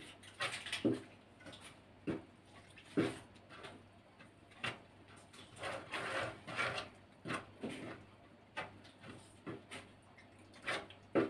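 Dough being mixed by hand in an enamel bowl as liquid is poured from a metal ladle into the flour: irregular soft scrapes and knocks, a dozen or so short ones.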